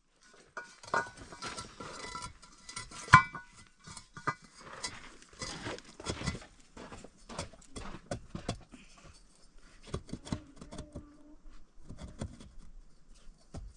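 Hollow clay bricks clinking, knocking and scraping against concrete blocks as they are handled and set into a wall, with one sharp loud knock about three seconds in.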